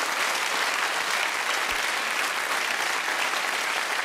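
Audience applauding steadily: many hands clapping at once in an even, unbroken stream.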